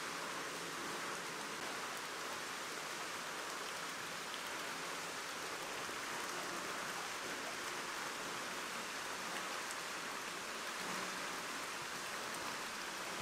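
Steady rush of water in an indoor salmon farming tank: an even, continuous hiss with no distinct splashes standing out.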